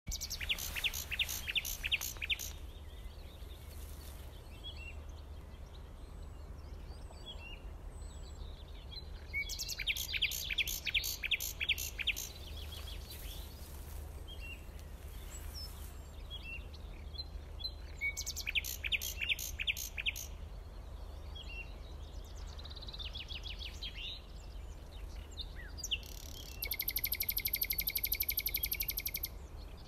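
Birds singing in bursts of rapid, high repeated notes, with scattered single chirps between them and a steady low hum underneath. Near the end comes a buzzy trill lasting about three seconds.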